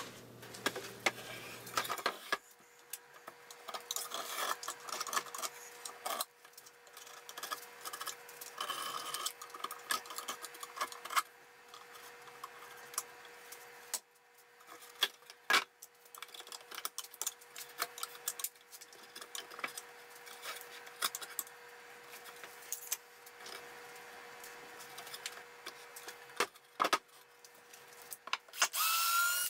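Pine blocks and a plywood pallet deck being handled on a workbench: wood knocking and scraping as pieces are set down and slid into place, with a few sharp knocks and a faint steady hum underneath. A brief loud noisy burst comes near the end.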